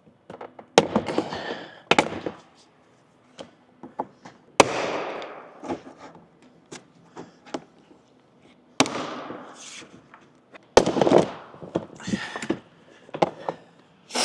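Plastic push-in retaining clips of a Jeep Gladiator front door trim panel popping loose one after another as the panel is pulled straight off the door, several sharp pops a few seconds apart with the panel rattling and scraping between them.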